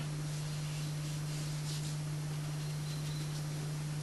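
Steady low electrical hum and hiss, with a few faint soft swishes of a watercolour brush on paper.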